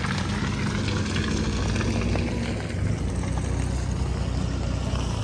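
Off-road 4x4 vehicle engine running steadily, a low hum under general noise.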